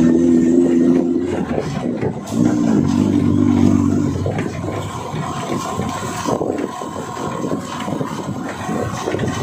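Music for the first few seconds, then an off-road 4x4 vehicle's engine running as it drives over rough ground, with scraping noise.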